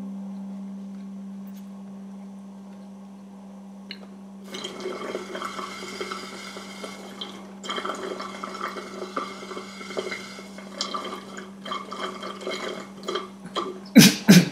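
A held low note left over from the computer's music fades away over the first few seconds. Then comes drinking from a plastic cup of iced water: liquid sloshing and ice clicking against the cup in irregular little bursts, with a few louder clunks near the end.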